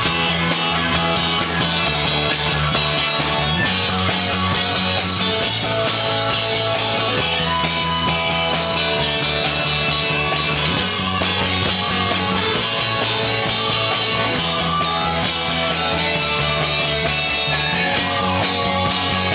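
Live rock band playing loud and steady, with electric guitar and drum kit with cymbals. A low bass line steps between notes every couple of seconds.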